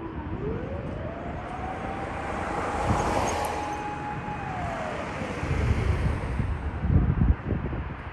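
Fire engine's mechanical motor siren winding up from a low growl to a held high wail about two seconds in, then winding down again over the next couple of seconds. Underneath there is a low rumble, with heavy low buffeting near the end, like wind on the microphone.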